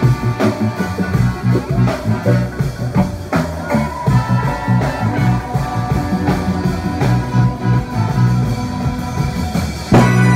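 Live funk band playing, led by electric bass and drum kit with guitar and keyboards, driving hard on a steady groove. It closes with one loud final hit near the end.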